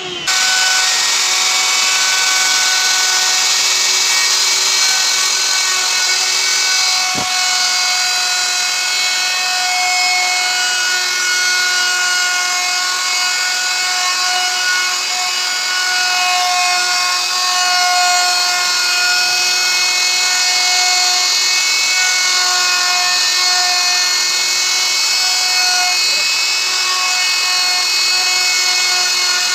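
Handheld plunge router running at full speed while its carving bit cuts relief grooves into a board, giving a steady high whine over a loud hiss. The sound comes in abruptly right at the start.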